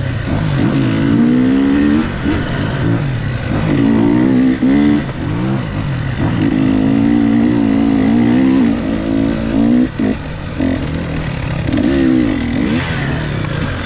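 Dirt bike engine revving up and down under the rider's throttle on a twisty trail, the pitch climbing and falling again and again, with brief drops in the engine note about four and a half and ten seconds in.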